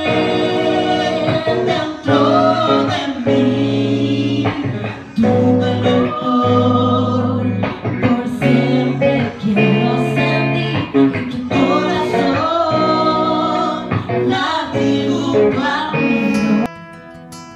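A woman singing a slow song into a microphone over plucked-string guitar accompaniment, amplified in a hall. Near the end the singing cuts off, leaving quieter guitar music.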